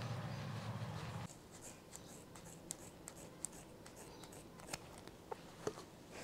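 Scissors snipping hair: a handful of quiet, sharp snips spaced out irregularly. A low steady hum underneath cuts off about a second in.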